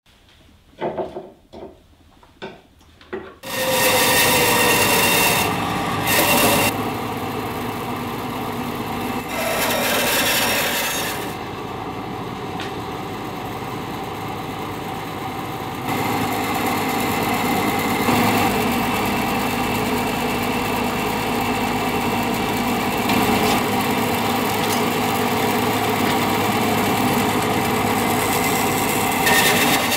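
Woodworking sounds: a few short scraping strokes, then a band saw running and cutting into a block of wood, its sound shifting several times as the cut goes on.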